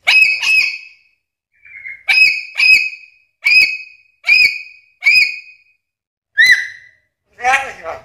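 Black-capped lory (Lorius lory) giving a series of about eight loud, shrill calls, each a short note that rises and falls in pitch, spaced half a second to a second apart. Near the end comes a lower, rougher, speech-like call.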